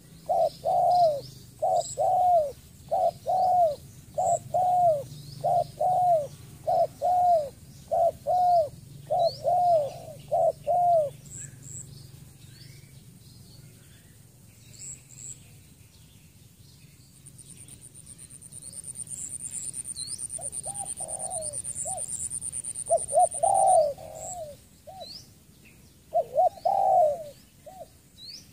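Spotted dove giving a rapid series of short coos, about two a second, which stops about eleven seconds in and resumes in shorter, irregular bursts near the end. Small birds chirp faintly above it, and a high, fast-pulsing buzz runs for several seconds in the middle.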